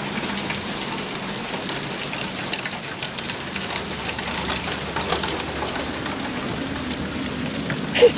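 Heavy rain pouring steadily onto surfaces in a thunderstorm, with scattered sharp ticks of drops striking. There is one brief, sharper and louder knock just before the end.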